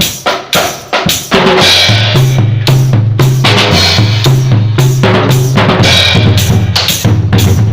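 A drum kit playing: about four sharp separate hits in the first second or so, then, from about a second and a half in, full loud playing with cymbals over a bass line that steps between notes.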